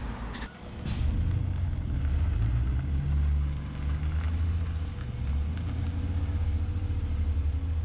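Honda Civic exhaust through an Apexi WS2 muffler, the engine running with a deep rumble. The revs rise about a second in, drop back near four seconds and then hold steady.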